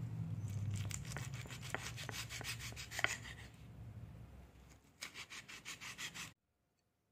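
Kitchen knife sawing through citron flesh and rind against a wooden cutting board in quick, short strokes; the sound cuts off suddenly a little before the end.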